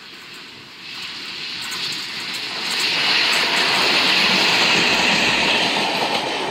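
Diesel locomotive running light, approaching and passing close by. Its engine and wheel noise grow louder over the first few seconds, are loudest as it passes, and begin to ease off near the end.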